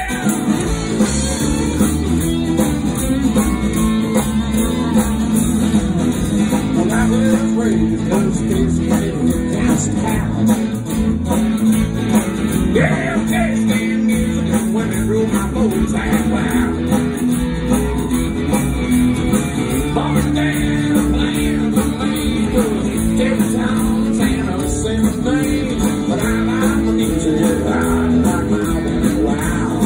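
A live country band playing at full volume, with a strummed acoustic guitar over a steady beat.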